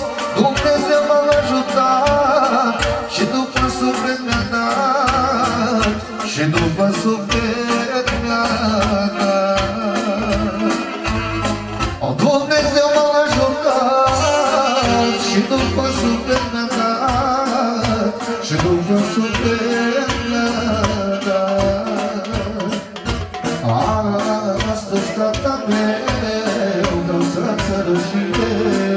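A man singing through a microphone over loud live party music with a steady drum beat.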